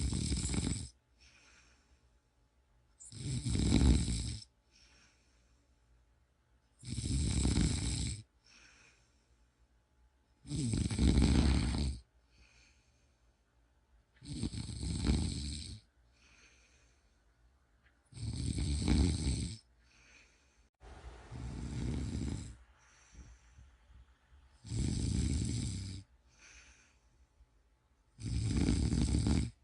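A person snoring in steady sleep, one snore about every three and a half to four seconds, each followed by a short, softer breath. One snore about two-thirds of the way through is softer and breathier than the rest.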